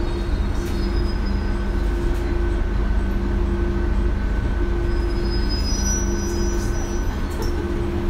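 Diesel railcar idling at a standstill, heard from inside the car: a steady low engine hum with a couple of faint steady tones above it.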